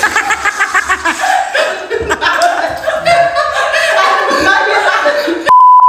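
Several people laughing and chuckling with bits of chatter. Near the end this gives way to a loud steady beep tone.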